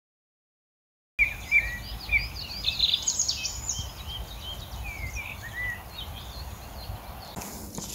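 Silence for about a second, then small birds chirping and twittering in quick, overlapping calls over a steady low outdoor background noise. The calls thin out, and a broader rush of noise comes up near the end.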